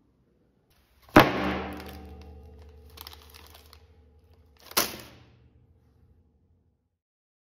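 Two edited sound-effect hits, about three and a half seconds apart: each is a sudden strike followed by a ringing tail of steady tones that fades over a few seconds. They go with a dish of tteokbokki and then a bag of fries popping into view on the table.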